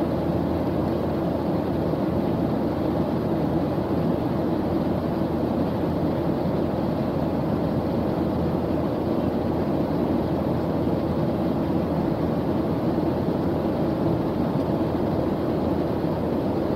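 Steady in-flight cabin noise of a jet airliner, heard from inside the cabin: an even, deep rush of engine and airflow noise that holds unchanged throughout.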